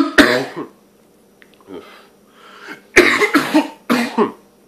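A man coughing hard into his fist after a strong hit of wax vapour from a vape pen: one cough at the start, then a run of several coughs about three seconds in.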